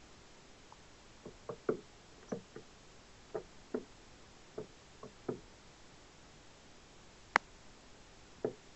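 Soft, irregular knocks of peanuts in the shell against a wooden deck railing as an American red squirrel picks at them and handles one, about a dozen in the first half. Near the end comes a single sharp crack, then one more knock.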